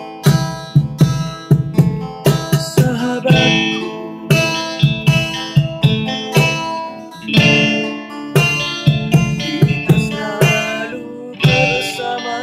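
Acoustic band music: guitars playing chords and notes over a regular percussion beat.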